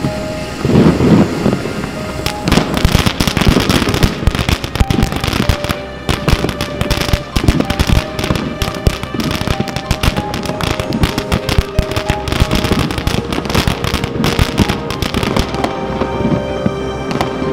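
Firework fountain burning, with a dense, rapid crackling from its crackling effect starting about two seconds in. The crackling thins out near the end as the fountain burns down, over background music.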